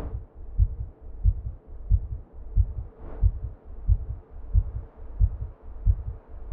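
Slow, even heartbeat-style thumping, deep and muffled, about one and a half beats a second, over a faint steady hum. A soft whoosh swells at the start and again about three seconds in.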